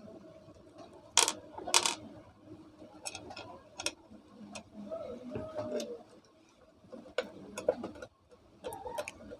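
Metal parts of a ceiling fan clicking and knocking as the fan is fitted back together after its bearings are changed: two louder knocks a little over a second in, then scattered light ticks.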